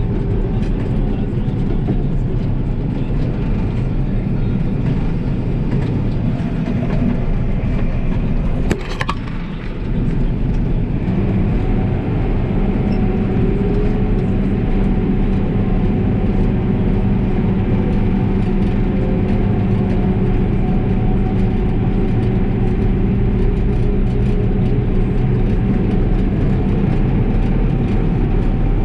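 Heavy diesel farm machinery running steadily, a continuous low drone. It breaks briefly with a sharp click about nine seconds in, then carries on as a steadier hum.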